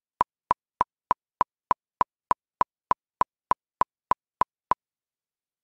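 Clock-tick sound effect: sharp, evenly spaced ticks, about three a second, stopping near the end.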